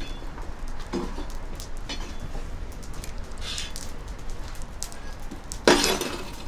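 Meat sizzling on a barbecue grill, a steady crackling hiss with a few faint clinks, and one loud clatter about five and a half seconds in.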